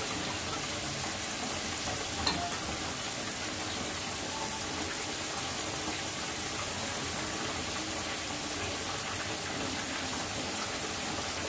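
Onions, garlic and ginger paste and whole spices frying in hot oil in a pot as the onions brown, a steady, even sizzle.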